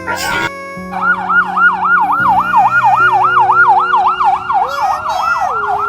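Emergency-vehicle siren in a fast yelp, its pitch sweeping up and down about four times a second, starting about a second in over steady held tones.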